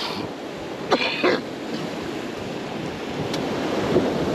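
Steady wind and water noise on the microphone, with one short harsh sound, cough-like, about a second in.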